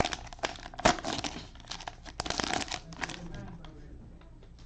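Cellophane wrapper of a trading-card cello pack being torn open and crinkled. It is dense crackling with sharp snaps for about three seconds, then fainter rustling as the cards come out.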